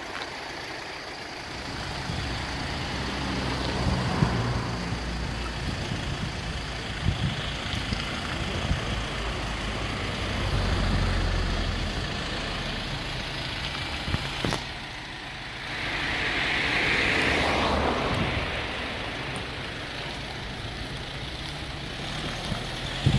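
A vehicle engine idling steadily, with a louder rushing swell of passing traffic about two-thirds of the way through.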